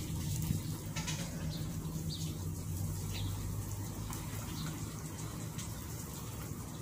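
Cutting torch running with a steady rushing hiss, over a steady low machine hum.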